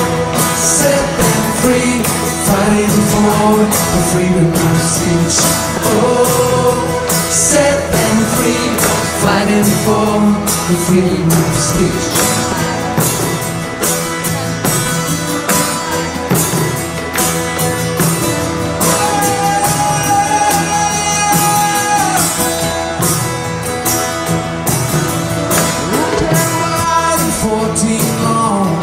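Live band music: acoustic guitar strumming over a steady percussion beat, with a voice singing the melody and one long held note past the middle.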